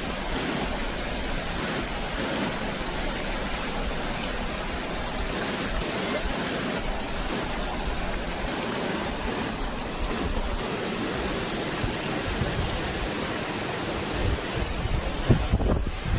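Flash floodwater rushing steadily, a dense even roar of water. A few low thumps stand out about fifteen seconds in.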